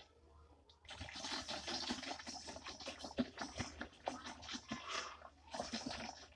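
Scratchy plastic crackling and rustling, starting about a second in, from a plastic bottle of DEP oil being handled over a mixing tub.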